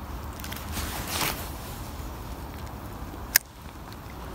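A cast with a spinning rod and reel: a swish about a second in as the line pays out, then a single sharp click past the middle, over a steady low rumble.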